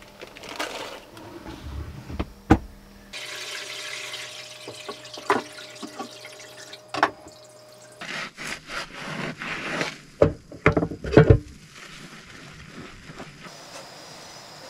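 Dishwashing at a small stainless-steel sink: tap water running, a sponge scrubbing a wooden sushi-rice tub (hangiri), and dishes knocking against the sink, loudest in a cluster of knocks a little past the middle. It opens with a plastic bag rustling and one sharp click.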